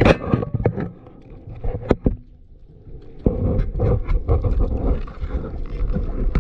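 Underwater sound of a diver moving with a speargun: a sharp knock right at the start, then scattered clicks. From about three seconds in there is a steady rushing of water and movement with many small ticks.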